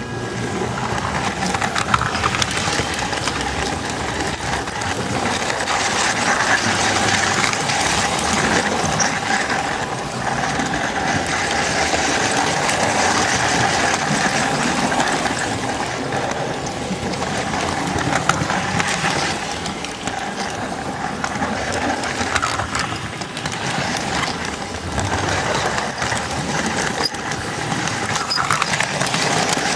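S-gauge model train rolling along the track, heard up close from a car in the train: a steady clatter of metal wheels on the rails with a steady mid-pitched motor whine, and scattered sharper clicks.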